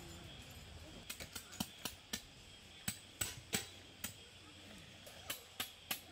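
About a dozen irregular, sharp clicks and light clinks of small hard objects, coming in loose clusters.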